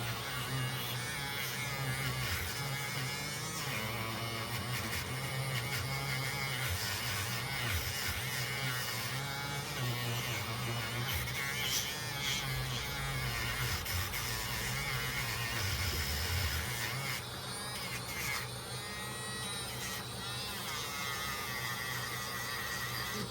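Background music over the steady buzz of a small handheld electric motor.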